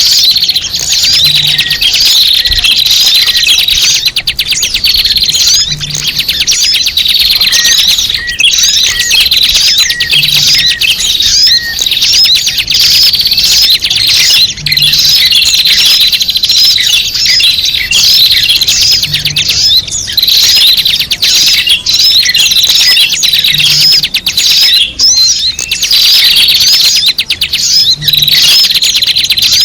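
Dense, loud chorus of many small birds chirping and twittering together without a break, a bird-lure (pikat) recording of noisy small birds. A faint low blip repeats about every four and a half seconds underneath.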